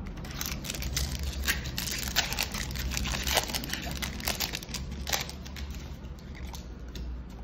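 Foil wrapper of a Magic: The Gathering draft booster pack crinkling and tearing as it is ripped open and crumpled by hand: a dense run of irregular crackles that thins out after about five seconds.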